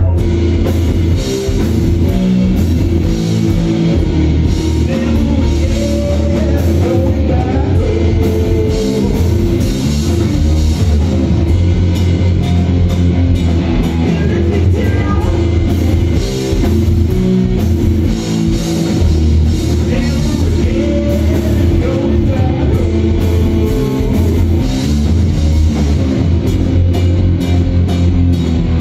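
Live rock band playing a loud instrumental piece: two electric guitars over a drum kit.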